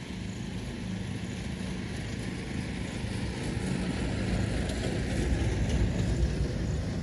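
Low engine rumble of a motor vehicle, swelling louder toward a peak about six seconds in.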